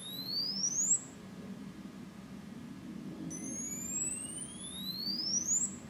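TrackR Bravo Bluetooth tracker ringing with its alert tone, a rising electronic sweep that climbs for about two and a half seconds. One sweep ends about a second in, and another starts a couple of seconds later and runs until near the end. It is a distinctive sound but not very loud at all.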